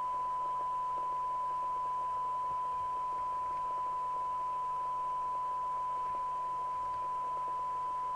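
Steady, unbroken single-pitch test tone from a Radiomobile CB202 FM CB radio's receiver: the signal generator's modulated test signal being received and demodulated during receive alignment and a SINAD check. A faint low hum sits beneath it.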